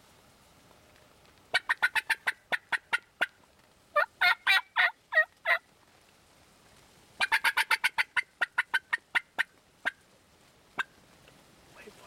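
Wild turkey toms gobbling: three loud gobbles of rapid rattling notes, starting about a second and a half, four and seven seconds in, followed by a couple of single sharp notes near the end.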